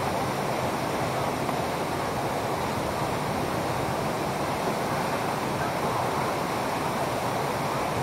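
Steady rush of a waterfall pouring into a rock pool, an even hiss of water with no breaks.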